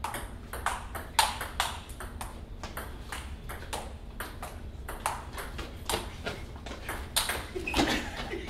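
Table tennis rally: a ping pong ball clicking back and forth off the paddles and the table top in a quick, uneven run of sharp ticks.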